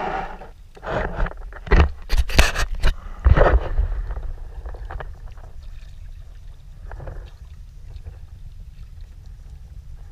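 A hooked fish thrashing and splashing at the water surface beside a kayak, a run of loud sharp splashes about one to four seconds in that then die away. A steady low rumble of wind on the microphone runs underneath.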